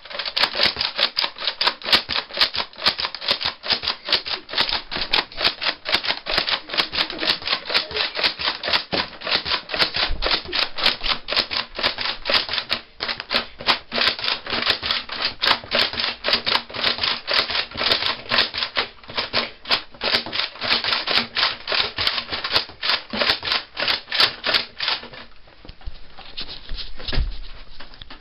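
Nerf Raider CS-35 pump-action dart blaster being pumped and fired over and over, a fast steady run of sharp plastic clacks and dart shots, several a second, that stops about 25 seconds in.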